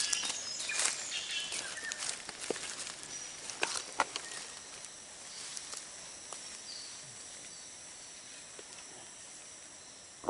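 Forest ambience: faint steady high-pitched insect buzzing, with scattered crackles and snaps that are busiest in the first few seconds and then die away.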